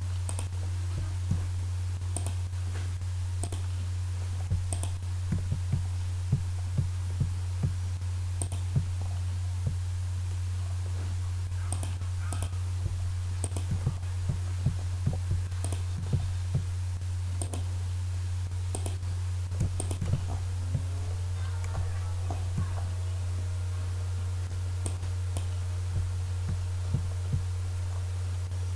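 Computer mouse clicking at irregular intervals over a steady low electrical hum.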